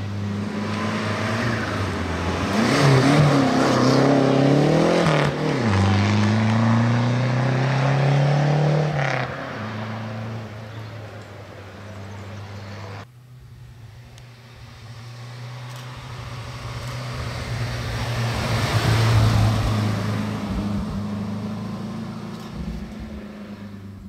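Classic rally cars passing at speed on a stage. The first accelerates past with its engine pitch climbing, dipping at a gear change about five seconds in, then climbing again. After a cut, a second car approaches, passes and fades.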